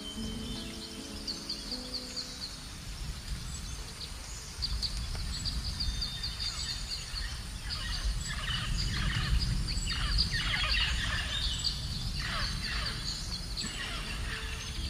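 Forest nature recording: birds give rapid high chirps throughout, and from about six seconds in, repeated calls that slide steeply downward in pitch, over a low rumbling background. A few low held notes of music fade out in the first two seconds.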